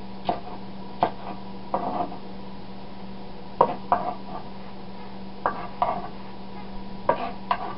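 Kitchen knife chopping brown shimeji mushrooms on a wooden cutting board: irregular sharp knocks of the blade against the board, often in quick pairs every second or two, over a steady low hum.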